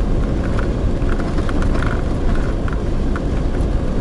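Camper van driving, a steady low road rumble heard inside the cab, with small light rattles.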